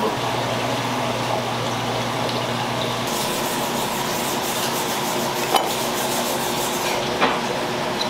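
Steady noisy kitchen background while a salmon fillet is handled on a plastic cutting board, with two short sharp clicks of the knife or fish against the board, about five and a half and seven seconds in. A low hum stops about three seconds in.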